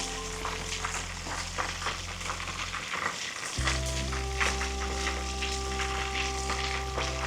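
Food sizzling and crackling in a hot frying pan, with some stirring, over background music whose held tones break off briefly about three seconds in and come back on a new chord.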